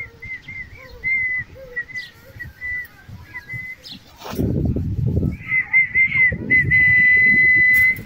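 Indian ringneck parakeet whistling: a run of short, chirpy whistle notes, then a long steady whistle held for about two and a half seconds near the end. A sharp knock about four seconds in is followed by low rumbling noise.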